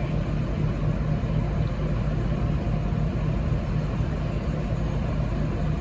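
V/Line VLocity diesel multiple unit's engines idling, a steady low drone that holds even throughout.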